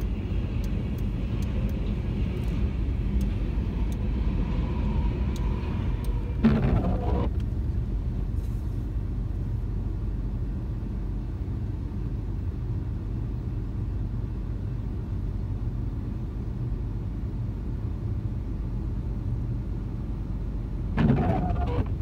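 Tail end of a freight train of grain hopper cars rolling past, fading to a steady low rumble. There is a short loud knock about six seconds in and another near the end.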